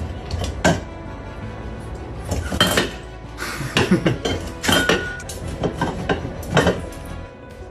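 A lidded container and its lid clinking and clattering as an African grey parrot works at them, with a series of sharp knocks, several close together in the middle.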